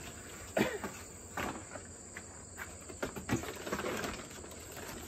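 A cardboard box being unpacked by hand: packing paper and molded pulp egg-flat packing rustling and knocking in several short bursts. Behind it, a steady high chirring of insects.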